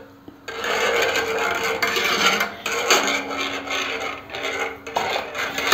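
Wire whisk scraping and swishing against the bottom and sides of an enamel pot, stirring a thin wheat-starch-and-water mixture as it heats toward the boil. The strokes run on without a break, with a couple of brief dips, starting about half a second in.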